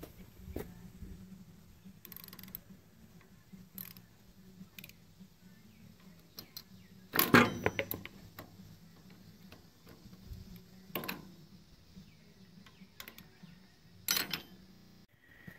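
Socket ratchet wrench clicking as it works the bolts on the cast-iron hydraulic cover plate of a 1963 Ford 4000 tractor. Scattered sharp metal clanks of tools against the housing come between the clicks, the loudest about seven seconds in.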